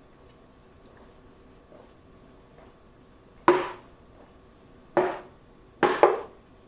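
Plastic water bottle crackling and popping as someone drinks from it: four sharp pops, the first about halfway through, the last two close together.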